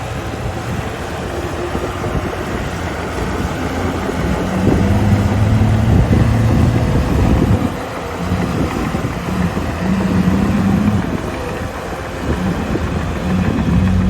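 Caterpillar D5G XL crawler dozer's diesel engine running, its pitch and loudness rising for a few seconds from about four and a half seconds in, easing off, then rising again near the end as it works under load.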